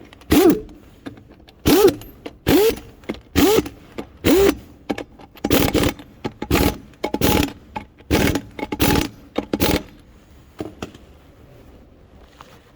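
Impact wrench fired in a quick run of short bursts, each a motor whirring up and down with a rattle, as wheel nuts are run on or off during a tyre change.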